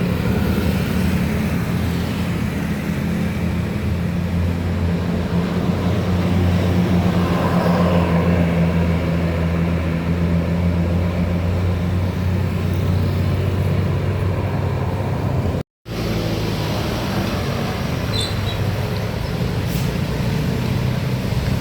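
Tour bus engine running with a steady low drone, mixed with road traffic. The sound cuts out for a split second about three-quarters of the way through, then the engine and traffic noise carry on.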